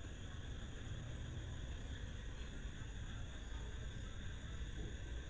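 Faint steady background hiss with a low hum, no distinct sound events.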